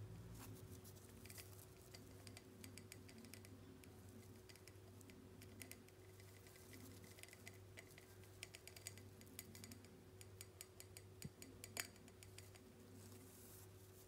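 Faint, quick clicks and taps of a green-cheeked conure's beak biting and pecking at the rim of a drinking glass, coming in irregular clusters with one sharper click near the end, over a low steady hum.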